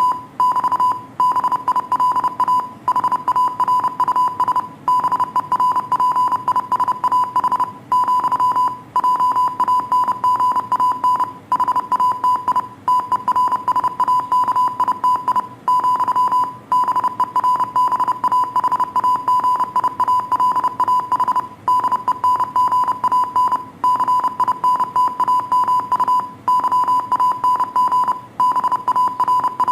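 Morse code sent as a single tone of about 1 kHz, keyed on and off quickly in short and long beeps, with slightly longer pauses between groups.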